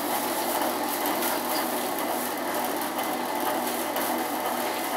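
Kavinstar Jumbo S40 heavy-duty strip-cut paper shredder running steadily, its 2 HP Godrej motor driving the cutters as paper goes through in 8 mm strips.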